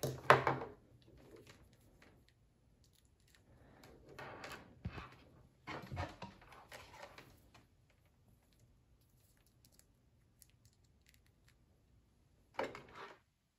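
Multimeter test leads being handled: cables rustling and plastic probes and clips clicking and knocking, in a few short bursts with quiet between.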